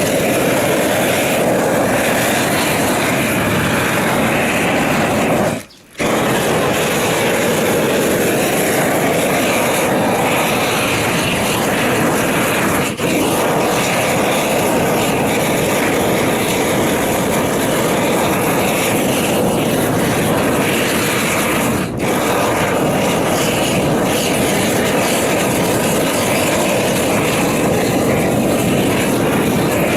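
Propane roofing torch burning with a steady, loud rushing noise, as used to heat torch-on roofing felt. The sound drops out sharply for a moment about six seconds in.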